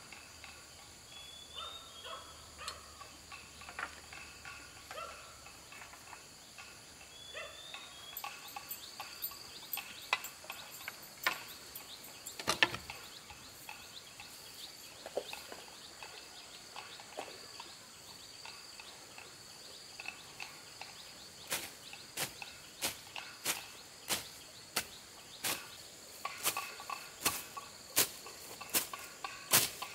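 Insects buzzing steadily, with a few short bird chirps in the first half. About two-thirds of the way through, a run of sharp knocks begins, about one and a half a second and growing louder, like a hand tool striking.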